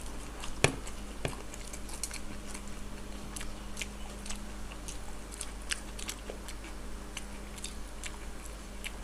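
Egg devils, breadcrumb-coated deep-fried egg cutlets, being bitten and chewed, with scattered crisp crunches and one sharper crunch or click about two-thirds of a second in.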